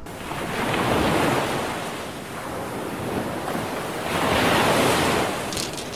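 Waves washing onto a rocky, pebbly shore, swelling and fading twice, about three and a half seconds apart, with wind on the microphone.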